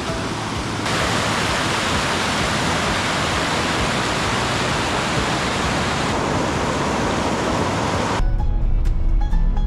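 Steady rushing water, like a waterfall, under background music; the water noise jumps in level at abrupt cuts. Near the end it gives way to a loud low rumble.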